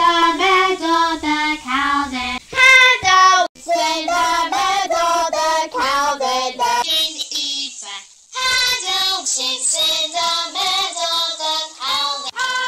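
High-pitched, child-like singing voice carrying a tune in short sung notes, with a short break about eight seconds in.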